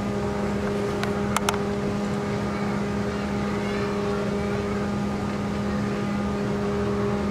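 Snow machine running with a steady mechanical hum: a low drone with several higher tones above it. Three sharp clicks come a little over a second in.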